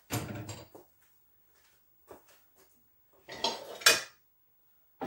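Kitchenware clattering: a metal pot knocks on a gas stove's grate, followed by a few small clicks. A longer, louder clatter comes a little past three seconds in.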